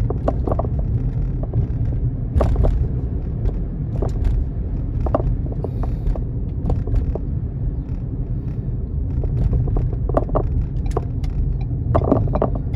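Car driving along a road, heard from inside the cabin: a steady low rumble of engine and road noise, with scattered light taps and knocks.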